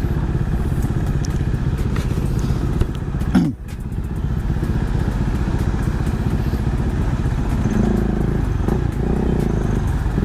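Kawasaki Z H2's supercharged inline-four engine running while the motorcycle is ridden, a steady low rumble with one brief drop in level about three and a half seconds in.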